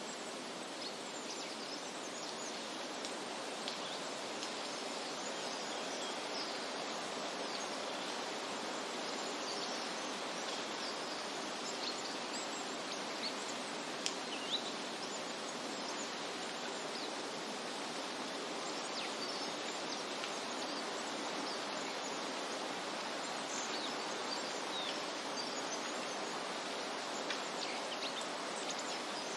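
Outdoor nature ambience: a steady rushing hiss with many short, faint, high chirps scattered through it, and two sharp ticks about halfway through.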